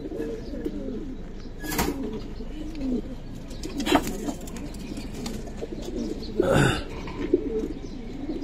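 Domestic pigeons cooing continuously, several voices overlapping. A few brief sharp rustling noises cut in, the loudest about six and a half seconds in.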